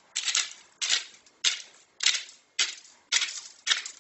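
Hand-twisted pepper mill grinding peppercorns: seven short grinding crunches, one about every 0.6 seconds, each twist of the mill making one.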